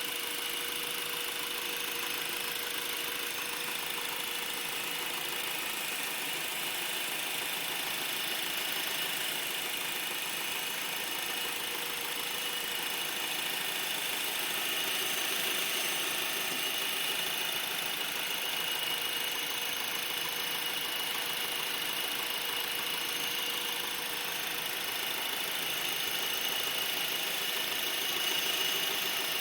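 2012 Honda Accord LX running steadily, with a high-pitched squeak or whistle held as a steady tone over the engine noise. The dealer calls this noise normal, but the owner does not hear it on another car of the same model.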